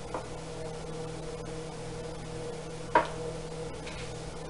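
Steady electrical hum in a small room, with a faint click just after the start and a single sharp click about three seconds in.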